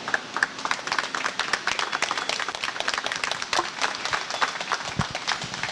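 A small group of people applauding by hand, many overlapping claps that thin out to a few near the end.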